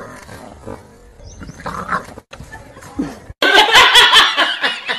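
A woman laughing loudly, starting suddenly about three and a half seconds in, after quieter indistinct sounds.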